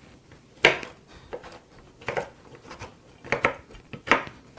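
Kitchen knife coarsely chopping macadamia nuts on a wooden cutting board. About seven sharp, irregular knocks of the blade against the board.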